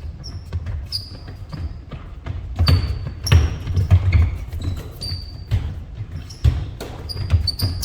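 Basketballs bouncing on a hard court floor in quick, irregular thuds, with short high squeaks from sneakers.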